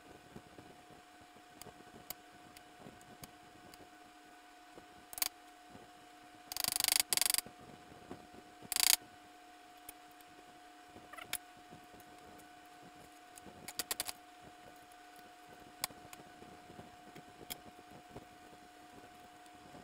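Scattered metallic clicks and clinks of hand tools and steel parts being handled at an open garden-tractor transaxle case. The loudest is a short run of rattling knocks about seven seconds in, followed by a single sharp clank about two seconds later, all over a steady faint hum.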